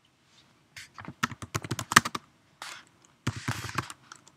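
Computer keyboard keys clicking as a short command is typed, in quick runs of keystrokes with brief pauses between them.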